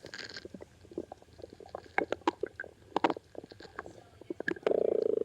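Stomach growling: a run of irregular gurgles and small pops, then a louder, longer growl near the end.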